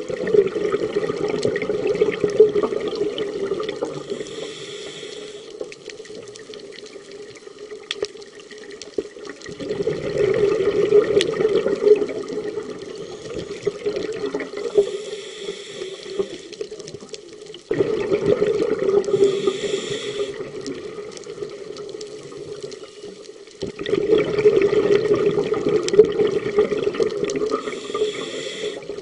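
Scuba diver breathing through a regulator underwater: four loud bubbling exhalations, each a few seconds long, with short hissing inhalations in between.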